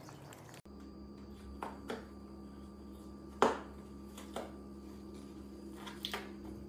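A spotted cat pawing into a hole in a wall, making a few light knocks and scrapes, the loudest about three and a half seconds in. A steady low hum runs underneath.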